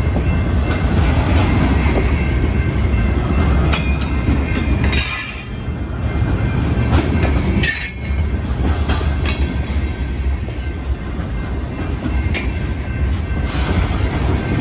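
Covered hopper cars of a freight train rolling past close by: a steady rumble of steel wheels on rail with sharp clicks and clanks as the wheels pass over the rail joints. The rumble dips briefly twice, about 5 and 8 seconds in.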